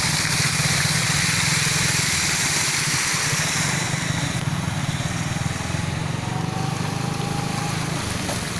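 Motorcycle engine running steadily while riding through floodwater, with a constant rush of splashing water. The hiss of water eases about halfway through.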